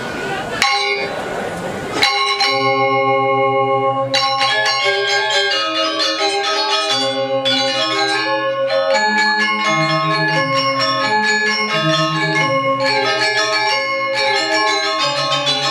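Balinese gamelan semar pegulingan playing: bronze metallophones ring out a quick interlocking melody over a slower lower line, coming in about two seconds in after a short noisy stretch with ringing tones.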